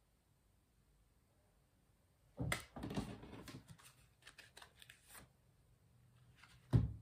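A deck of tarot cards being handled: about three seconds of rapid card shuffling and flicking, then a single sharp knock near the end.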